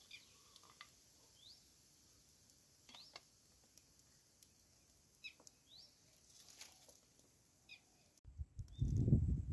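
Faint short rising bird chirps, a handful scattered over several seconds with quiet between. About eight seconds in, the sound cuts abruptly to a loud low rumbling noise.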